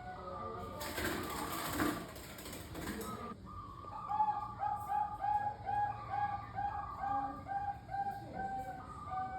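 Zebra doves (perkutut, Bangkok strain) cooing. One bird gives a quick, even run of about a dozen coo notes, and other doves coo fainter around it. Before the run, a harsh noisy burst lasts about two and a half seconds.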